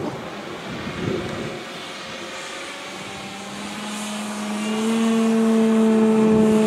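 Quarter-scale SIG Piper Cub RC model's electric outrunner motor and 20x6 propeller humming in flight. The steady hum grows louder over the second half as the plane comes near.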